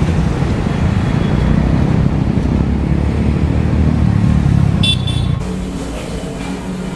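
Road vehicle running with a steady low rumble that eases off about five and a half seconds in. A short high horn toot sounds about five seconds in.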